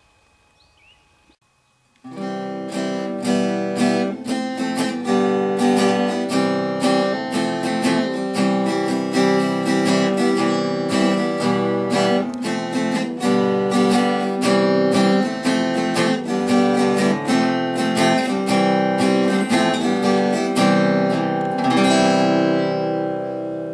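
Music of a strummed acoustic guitar, which comes in about two seconds in after a brief near-quiet moment and eases off slightly near the end.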